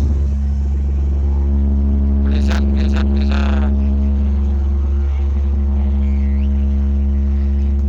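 Giant horeg parade sound system putting out a steady, very loud deep bass drone. A few voices shout briefly over it about two to three and a half seconds in.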